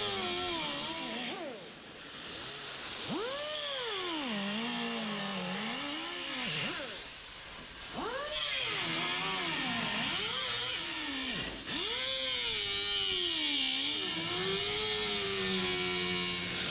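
Air-powered cutoff wheel (muffler cutter) cutting through car-body sheet steel around a brass-brazed seam. Its whine swoops up and down in pitch several times as the load on the wheel changes, with a steady hiss above it in the second half.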